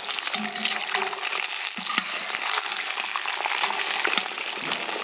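Whole quails sizzling and crackling in hot oil in a kazan, with a metal slotted skimmer scraping and clinking against the pot as the birds are turned.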